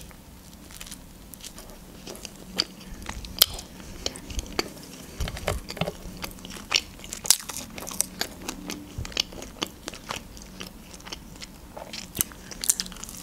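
Close-up chewing and biting of a grilled tombik döner sandwich, with many irregular crisp crunches.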